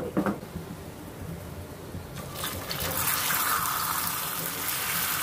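Water poured into hot caramelized sugar in a nonstick pan: about two and a half seconds in, a steady, loud hiss and sputtering bubbling starts as the caramel boils up, thinning into a syrup.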